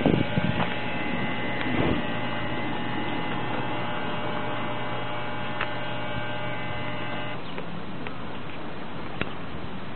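A steady hum made of several pitched tones, cutting off suddenly about seven seconds in, with a few soft knocks and rustles near the start.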